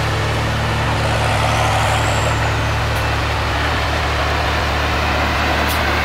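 New Holland CX800-series combine harvester running past at close range: a steady, loud machine noise over a deep, even engine hum.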